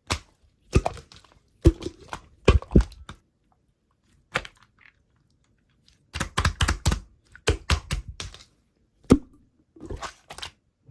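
Slime being pressed and squeezed by hand, giving short sharp clicks and pops with some squishy crackle. They come in clusters with gaps between, and the densest run of quick pops falls in the middle.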